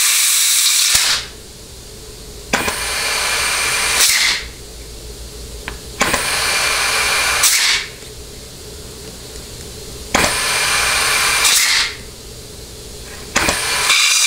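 Compressed-air blow gun hissing in five blasts of about a second and a half each, a couple of seconds apart. About 100 PSI of shop air is fed into a Ford C6 transmission's forward clutch feed to stroke the clutch piston for a clutch clearance check.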